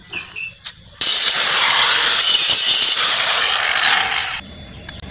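Hand angle grinder grinding on the steel rear axle, cutting at a welded bracket so it can be moved. The grinding starts abruptly about a second in, runs for about three and a half seconds, and dies away shortly before the end.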